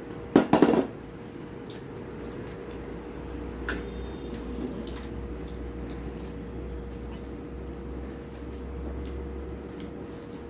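A steel bowl clattering against a steel plate about half a second in as curry is served, followed by faint small clicks and squishing of fingers mixing rice and curry on the plate over a steady low hum.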